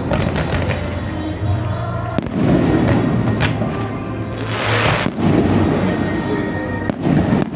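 Fireworks display: repeated bangs and crackling of bursting shells, with a dense hissing, crackling burst a little past halfway. Music plays underneath.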